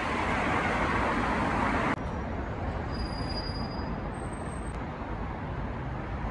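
Road traffic noise: a dense wash of passing vehicles, louder for the first two seconds, then dropping suddenly to quieter background traffic.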